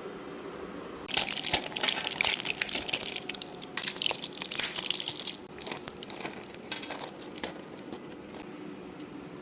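Crinkling and rustling of packaging being handled. It is dense for a few seconds, then breaks into scattered short crackles.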